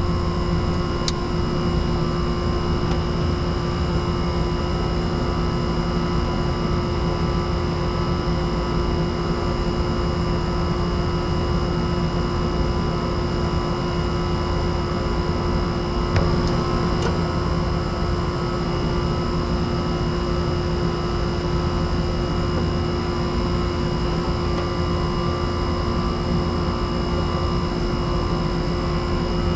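Air conditioner unit running with a steady hum, several constant high tones over a low rumble. A faint click comes about seventeen seconds in.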